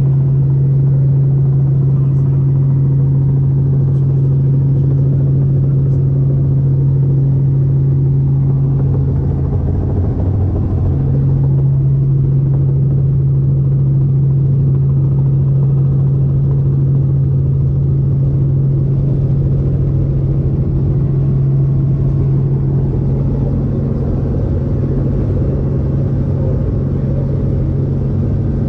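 Light helicopter's rotor and engine drone heard from inside the cabin, a loud steady low hum that wavers briefly about ten seconds in.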